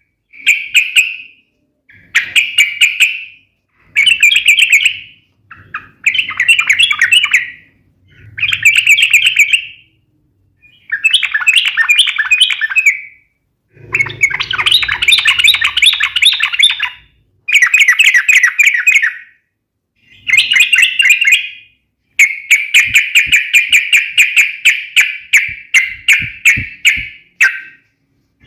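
Yellow-vented bulbul (trucukan) singing its sharp, rapid fighting song: loud bursts of fast chattering notes, each one to three seconds long, with short pauses between them. Two longer unbroken runs come in the middle and near the end.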